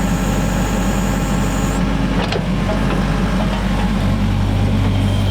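Engine of a ditch-digging machine running steadily, with a few knocks about two seconds in.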